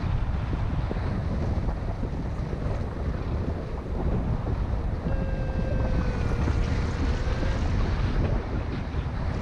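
Airflow rushing over the microphone of a paraglider in gliding flight: a steady, low wind-noise rumble. A little past the middle, a faint thin tone sounds for a couple of seconds, sliding slightly down in pitch.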